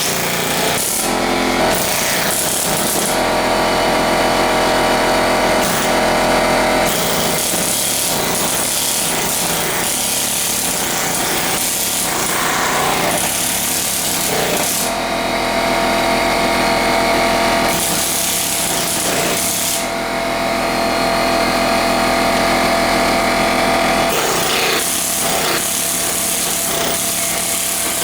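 Aircat long-stroke pneumatic air hammer (air chisel) running continuously, its chisel hammering into concrete and brick, with the tone shifting every few seconds as it is worked.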